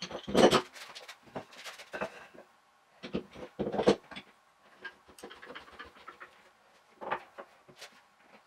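Workshop handling noise played back four times fast: quick irregular knocks and clatter as wooden blocks and a metal hold-down clamp are set on a wooden workbench. The loudest knocks come about half a second in, just before four seconds, and around seven seconds.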